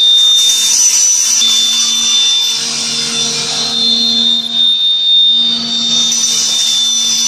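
Bamboo toothpick-making machine running steadily: an even motor hum under a high, steady whine and a hiss that swells now and then.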